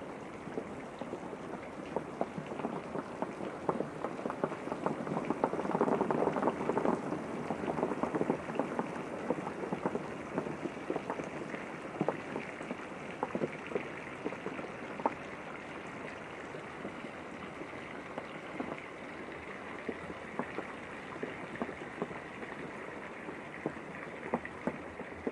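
Steady rain with many individual drops tapping, a little louder about five to eight seconds in.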